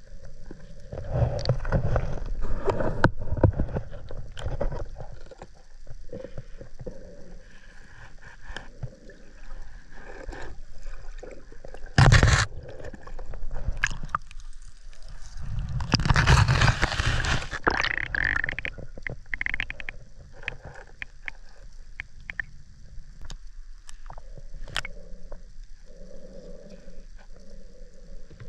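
Underwater noise in a river: scraping, clicking and gurgling. There is one sharp loud burst about twelve seconds in and a longer rush of noise a few seconds later.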